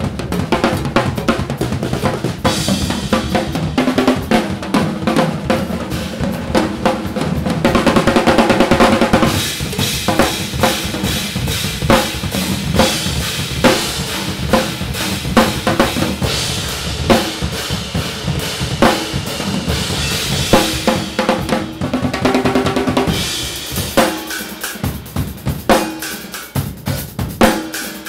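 Two drum kits played together in a freely improvised duet: bass drum, snare, toms and cymbals in busy, dense patterns. A loud, fast roll about eight seconds in, and sparser, quieter strokes near the end.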